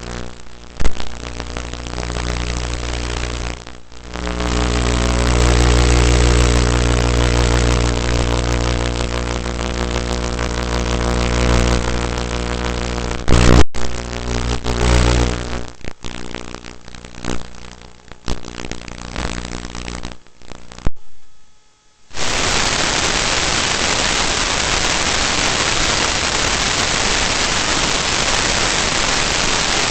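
FPV drone motors running, a steady many-toned hum that swells and dips with the throttle, with a few sharp knocks along the way. After a short dropout about two-thirds through, a steady even hiss like static takes over.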